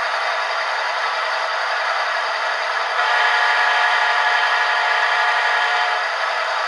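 Soundtraxx Tsunami sound decoder in an HO-scale GE ES44AC model locomotive playing recorded GEVO diesel engine sound through its small speaker, thin and lacking any deep bass. About three seconds in it turns louder with steady tones over it for some three seconds, then drops back.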